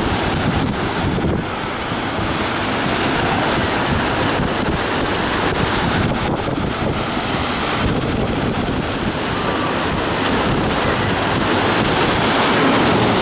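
Rough-sea surf breaking and churning around pier pilings and onto a beach, with wind buffeting the microphone.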